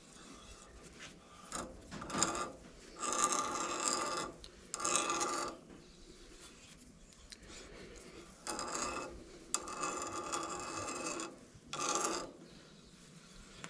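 Thread-cutting tap being turned by hand into a metal fitting, a series of rough scraping, grinding strokes, some brief and some a second or more long, as the tool cuts the threads.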